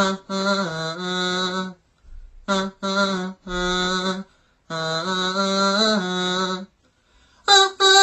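A voice chanting long, steady notes in short phrases with brief pauses between them, with a louder, higher phrase starting near the end.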